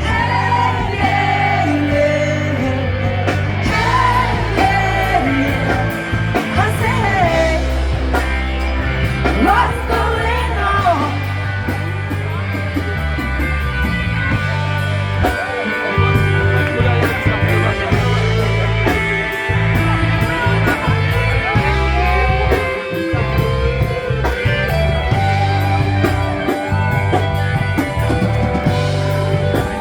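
Live rock band playing a song with a male or female lead singer, electric guitar and a steady bass line.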